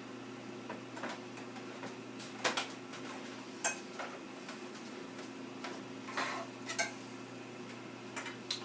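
Scattered clicks and light clatter of cable connectors being pushed into a desktop computer's motherboard inside its case, the sharpest two clicks a few seconds in, over a faint steady hum.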